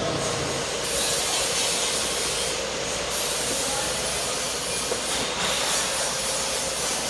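Electric welding arc crackling and hissing steadily.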